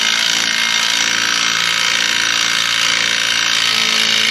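Impact wrench hammering steadily as it draws a new ARP wheel stud into the hub through a lug nut.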